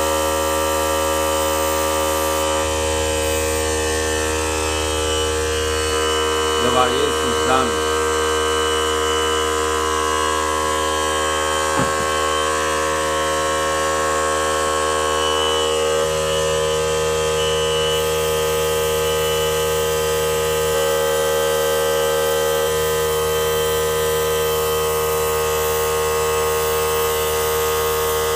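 Small electric airbrush compressor running with a steady, even hum. A couple of brief sliding squeaks stand out about seven seconds in.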